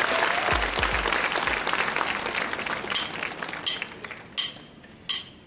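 Studio audience applauding, dying away over about three seconds into a few scattered last claps, then a hush.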